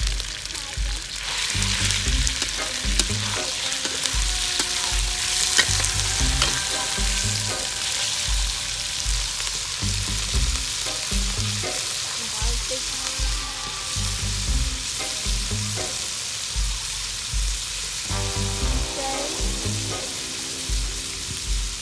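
Corn frying and sizzling in a hot pan while being stirred, with scattered sharp ticks over a steady hiss. Background music plays beneath.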